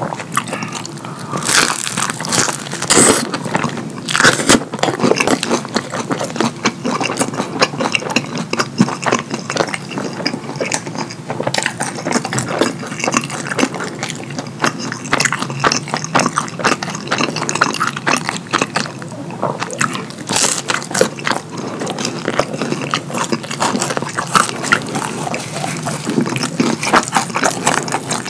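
Close-miked, messy eating: wet chewing and lip-smacking of food dripping with cheese sauce, a dense run of sticky clicks and crackles.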